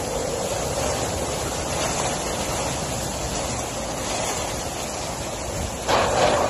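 Hurricane wind gusting through trees, a steady rushing noise with wind buffeting the microphone. A stronger gust comes near the end.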